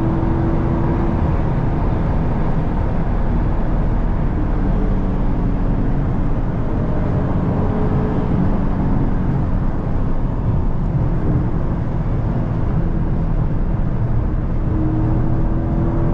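2023 Dodge Charger Scat Pack's 392 Hemi V8 running at a steady highway cruise, heard from inside the cabin: a steady low engine and exhaust drone mixed with tyre and road noise, with no revving.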